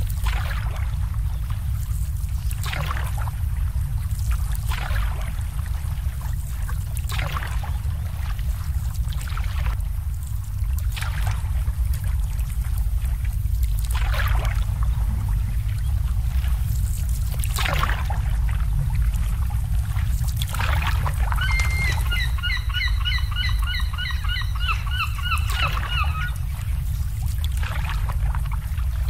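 Water lapping and sloshing against boat hulls, short splashes every couple of seconds over a steady low rumble. About two-thirds of the way in, a bird calls a rapid run of honking notes for about five seconds.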